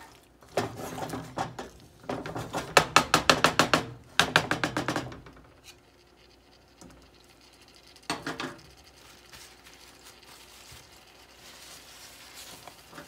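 A utensil stirring and scraping potatoes and peppers frying in a metal pan: a quick run of clattering strokes over the first five seconds, and a short burst about eight seconds in. A faint sizzle of the frying food is left after.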